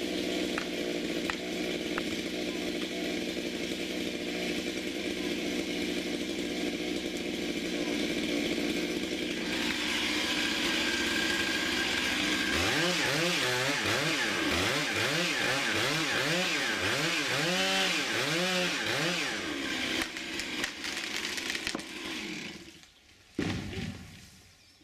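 Chainsaw cutting through a thick, hollow linden trunk during felling. The engine revs up and down over and over through the middle of the cut. Near the end the saw drops away and the trunk comes down with a single heavy thud.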